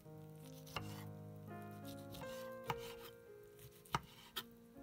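Soft instrumental background music with sustained notes, over about four sharp knocks from kitchen work.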